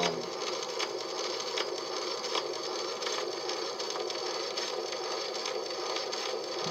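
Edison Diamond Disc phonograph with the stylus running in the disc's grooves before the recording begins: a steady surface hiss with faint scattered crackles.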